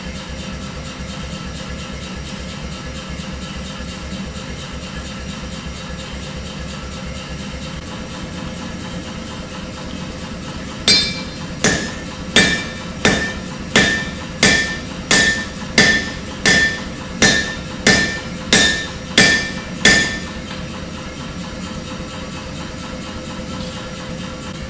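Hand hammer striking a hot 1075/15N20 Damascus steel billet on the anvil: about fourteen ringing blows at a steady pace of roughly one and a half a second, starting about eleven seconds in. Under it the gas forge runs with a steady roar.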